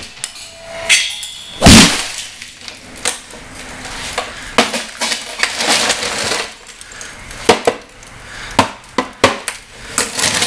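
Golf club repeatedly smashing a television set: a string of sharp blows at uneven intervals with cracking and clinking of breaking glass and plastic, the hardest blow about two seconds in.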